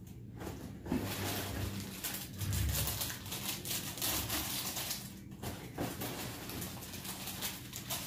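Rustling and light knocks of snack boxes and bags being handled and set on a shelf, irregular throughout, with a few duller thumps between about one and three seconds in.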